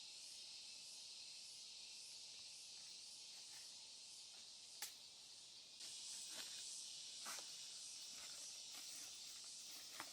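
Steady high-pitched insect chorus of the forest, faintly pulsing, with a sharp click about five seconds in, another near the end, and a few soft rustles in between.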